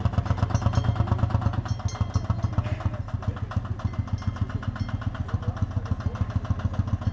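Lanz Bulldog D2816's single-cylinder two-stroke diesel engine running under way, a rapid, even beat of exhaust pulses, about nine a second.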